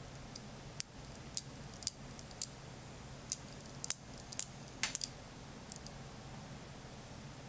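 Small neodymium magnet balls clicking sharply as they snap onto a ball-shaped cluster of magnets, about a dozen irregular clicks that stop a little before six seconds in.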